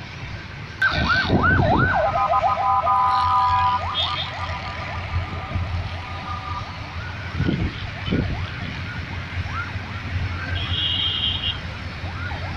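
An emergency-vehicle siren yelping in a fast rise and fall, starting suddenly about a second in and carrying on more faintly afterwards. A steady multi-note horn is held for about five seconds from two seconds in, over a low rumble.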